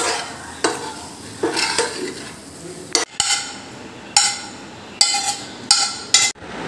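Metal spoon stirring and scraping in a steel pan of melon curry, then from about halfway several sharp ringing clinks of the spoon against the pan, roughly one a second.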